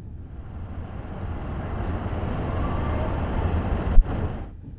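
Outdoor city ambience: a steady low rumble, with one sudden sharp low thump about four seconds in.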